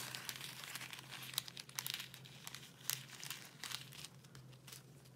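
Quiet diamond painting: light plastic crinkling with scattered small clicks as resin drills are picked up with a diamond pen and pressed onto the sticky canvas.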